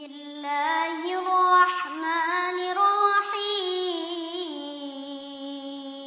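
A single high voice chanting a drawn-out melodic line in the style of Quran recitation, with ornamented, wavering notes, settling onto a long held note near the end.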